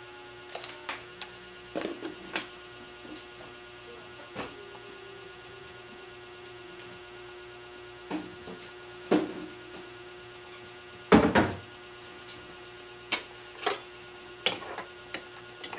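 A steady hum under irregular sharp pops and clicks, the loudest about eleven seconds in, from pork simmering in a pot on an electric stove burner.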